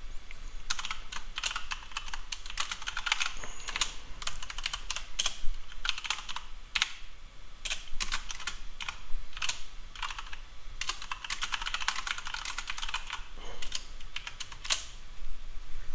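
Typing on a computer keyboard: irregular runs of quick key clicks as code is entered, with a short lull near the end.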